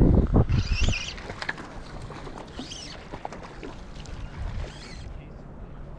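Lake water lapping and sloshing, with a hooked fish splashing at the surface on a taut fly line. Loud low thumps near the start, and short hissing splashes come roughly every two seconds.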